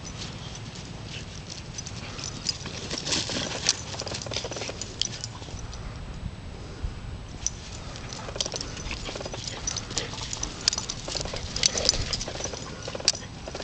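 Boxer dog playing with his rubber ball on grass: irregular light clicks, scuffs and rustles, thickest a few seconds in and again near the end. Under them runs a low steady rumble.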